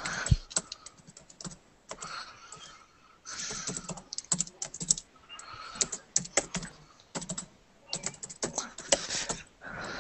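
Typing on a computer keyboard: keystrokes come in quick bursts with short pauses between them.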